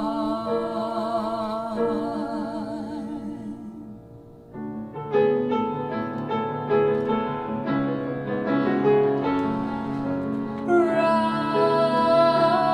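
A singer holds a long note with vibrato over a piano chord, fading out about four seconds in. The piano then plays on alone in a run of notes, and a voice returns with another sustained vibrato note near the end.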